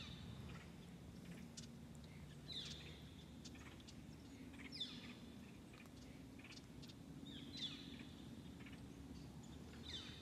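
A bird calling faintly and repeatedly, about five short high calls two to three seconds apart, each sliding down in pitch.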